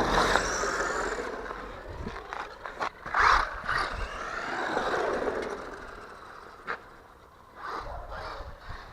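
A 1/12-scale four-wheel-drive hobby-grade RC car's electric motor whining, its pitch rising and falling as the car speeds up and slows. A few knocks come from the car's tyres and chassis on rough ground. The whine fades as the car moves away and returns briefly near the end.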